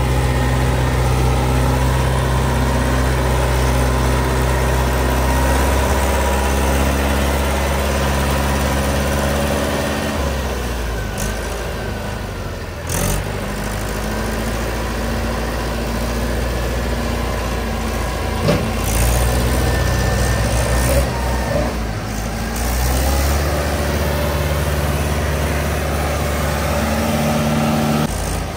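Tractor diesel engine running steadily, its engine speed changing a couple of times, with two sharp knocks in the middle.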